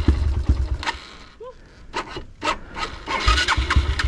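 Irregular scraping and knocking as the dirt bike moves over loose rocks on the trail, with a low rumble that fades out about a second in and comes back near three seconds.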